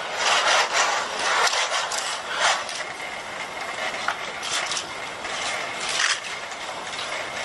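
HRP-4 humanoid robot's joint motors whirring over a steady hiss as it walks and settles into a standing pose, with scattered clicks and taps. A faint steady high whine holds from about halfway.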